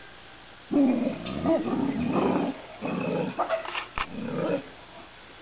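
Central Asian Shepherd dogs growling at the fence in three rough bouts, the first and longest starting about a second in, with a sharp click about four seconds in.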